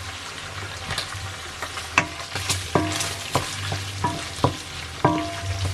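Bacon frying in a pan loosened with starchy pasta water, sizzling steadily while a metal spoon stirs and knocks against the pan; about a dozen sharp knocks, several of them ringing briefly.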